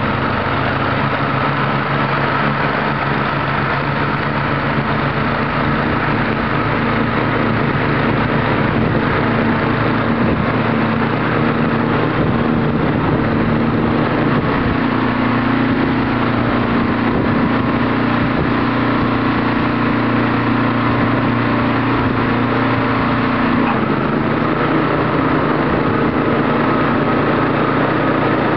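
Walk-behind gas snowblower engine running steadily at working speed while the machine clears snow.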